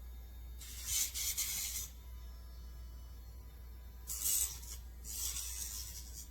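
Electric dog nail grinder sanding a dog's nail in short passes: a hissing grind about a second long, three times, over a faint steady hum.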